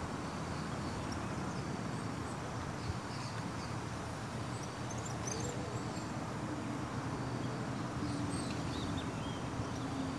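Steady outdoor background noise with faint high bird chirps now and then, a few of them about halfway through and again later.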